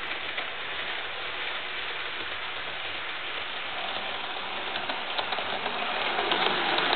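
HO scale model train, a D&H RS-3 diesel model pulling freight cars, running on the layout's track: a steady whirring hiss of motor and wheels on rail with light clicks. It grows louder from about two-thirds of the way in as the train comes around the curve toward the camera.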